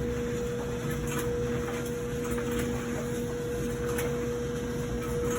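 Whirlpool clothes dryer running: a steady motor hum with a constant tone and a few faint light clicks from the turning drum, its worn drum support wheels newly replaced.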